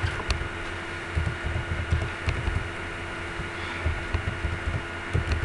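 Typing on a computer keyboard, heard as irregular soft low thuds with an occasional sharper click, over a steady electrical hum.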